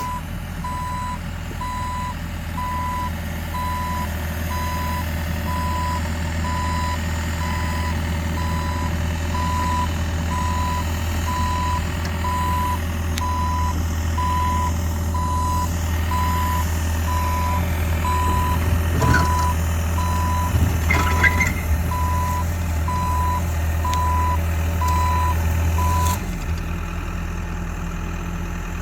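Excavator's travel alarm beeping steadily, about one beep a second, over the machine's diesel engine working; a few knocks come about two-thirds through, and the beeping stops near the end as the engine drops back.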